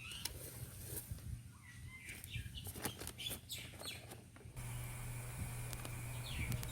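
Birds chirping in short calls over a steady low hum, with a few scattered clicks in the middle.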